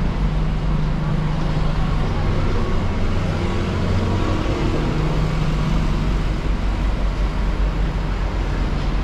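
City road traffic: a steady low engine hum from motor vehicles close by, over a continuous wash of street noise.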